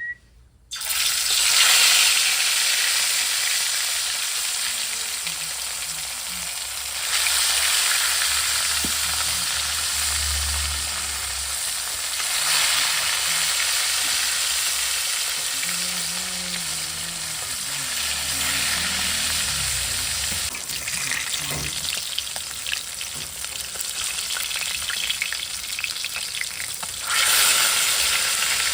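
Food frying in hot oil in a cooking pan: a loud sizzle that starts suddenly about a second in, as the food goes into the oil, and keeps going, swelling louder a few times.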